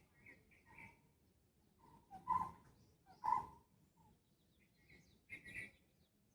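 Birds calling in short separate notes. Two louder, lower-pitched calls come about two and three seconds in, with softer, higher chirps near the start and near the end.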